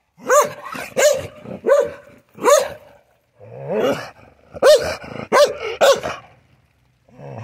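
Chained shepherd-type yard dog barking on alert: a run of four sharp barks, a longer lower sound, then another quick run of barks.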